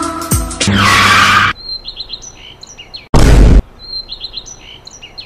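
Background music cuts off, followed by a loud rushing burst. Then birds chirp, the same short phrase coming back about every two seconds. A loud half-second burst of noise like a boom interrupts them about three seconds in.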